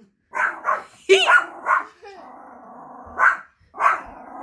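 Small chorkie dog barking repeatedly at its own shadow as if at another dog: about six barks in two bunches, with a low steady growl in the pause between them.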